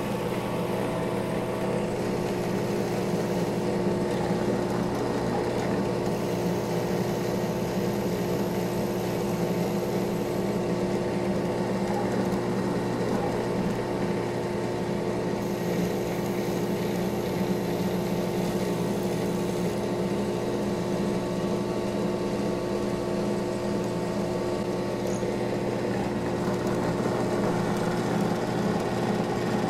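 WEN 4214 benchtop drill press running steadily at about 2,000 RPM, with an even motor hum and whine, while a new drill bit is fed through a scrap of white oak.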